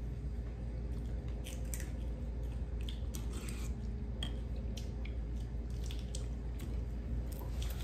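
Scattered small clicks and scrapes of eating at a table: a metal spoon scooping rice from a plastic bowl and hands pulling apart fried fish, over a steady low hum.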